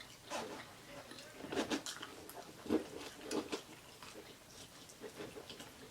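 A person chewing and biting food up close, with irregular wet smacks and clicks of the mouth.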